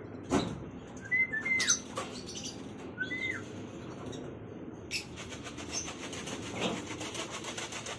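A person whistles short rising-and-falling calls twice to coax a returning racing pigeon into the loft trap. Pigeon wing flaps and a few sharp knocks on the wire loft sound between the whistles.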